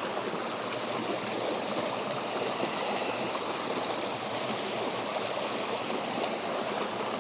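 Mountain creek water rushing steadily over a small cascade, a constant, even rush with no breaks.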